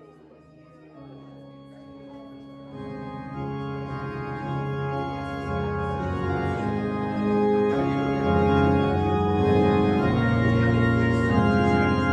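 Organ music in held chords, starting faint and swelling to full volume over the first several seconds.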